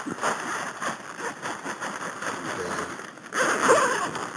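Tent fabric rustling and scraping as it is handled during setup, with a louder stretch of handling noise about three seconds in.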